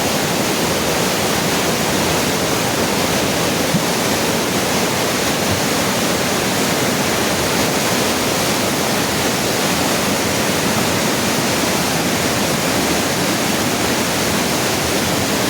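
Floodwater rushing past in a swollen creek or river: a loud, steady roar of fast-moving water.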